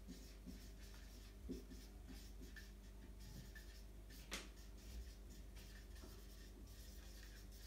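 Marker pen writing on a whiteboard: faint, intermittent strokes with one sharper tap about four seconds in, over a low steady hum.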